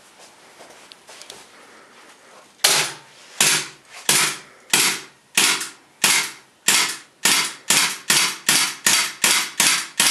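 WE G26C green-gas blowback airsoft pistol fired semi-automatic, about fifteen sharp shots that start a couple of seconds in and come faster and faster. Only one BB came out of the whole string: the pistol is faulty and not feeding.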